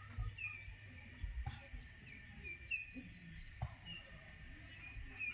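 Outdoor ambience of scattered short, high chirps, each sliding down in pitch, with a few faint knocks and a low rumble underneath.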